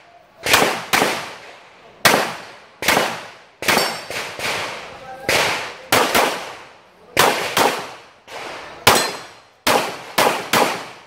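A Glock 17 Gen 4 9 mm pistol fired in a string of about fifteen shots at uneven spacing, mostly one or two a second with some quick pairs, each shot with a short echo.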